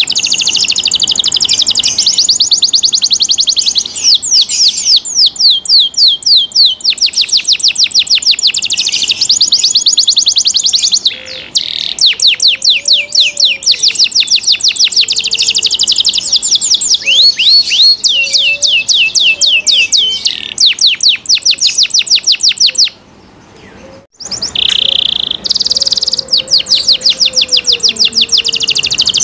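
Domestic canary singing a long song of very rapid trilled notes, rolling from one fast trill into the next, with a short break about three quarters of the way through.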